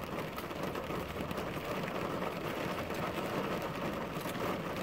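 Steady rain falling on the roof of a car, heard from inside the cabin, with scattered faint ticks of single drops.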